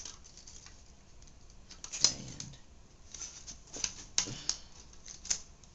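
Irregular small clicks and knocks of a floppy drive's plastic and metal parts being handled and worked apart by hand, the loudest about two seconds in and several more in the second half.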